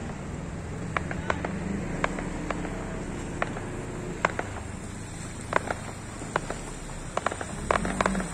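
Fireworks going off: irregular sharp pops and bangs, several close together near the end, over the steady hiss of heavy rain.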